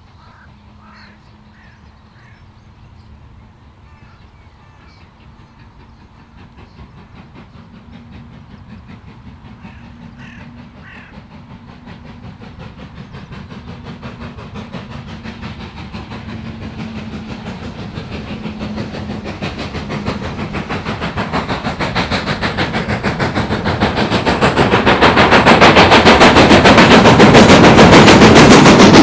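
Steam locomotive and train approaching, its rapid exhaust beats and running noise growing steadily louder over some twenty-five seconds until it is close at hand near the end.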